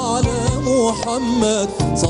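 A male soloist sings an ornamented, wavering melody in an Algerian inshad, a religious song praising the Prophet, to band accompaniment. Percussion strokes fall about every half second.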